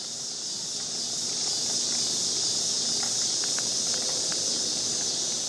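Steady, high-pitched chorus of insects, a dense shrill buzz that grows a little louder over the first couple of seconds.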